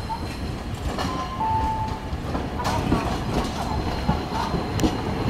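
Hakodate City Tram 9600-series low-floor streetcar running along street track as it moves away, a steady low rumble with some wheel-on-rail clatter.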